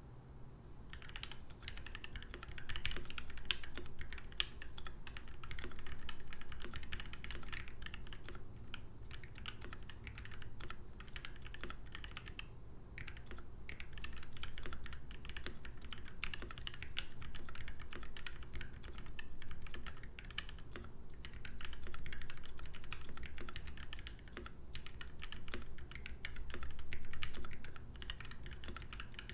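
Fast continuous typing on a custom mechanical keyboard: lubed Gateron Ink Black linear switches on a brass plate in a KBD67 MKII polycarbonate case, with GMK keycaps, the switches still mostly scratchy before break-in. The typing starts about a second in and runs on with a few brief pauses.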